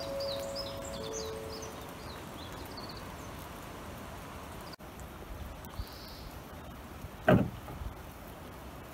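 Steady outdoor rain-like noise, with small birds chirping during the first three seconds. One loud knock comes about seven seconds in.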